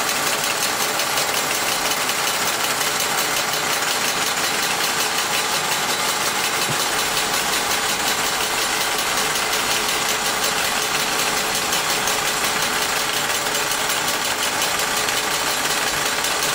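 Wilesco D141 toy steam engine driving a tin workshop through line shafts and belts: a steady, rapid clatter of the working tin figures, pulleys and belts, sounding like a busy workshop.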